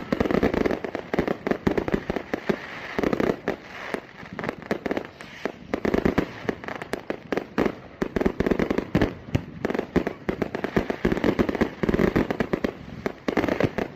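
Fireworks going off in quick succession: a dense, continuous string of bangs and crackles.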